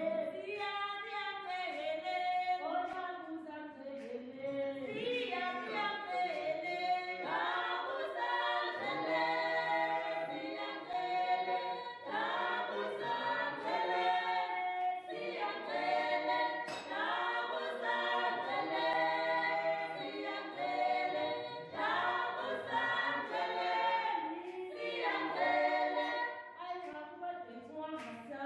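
A choir singing, several voices together in phrased song.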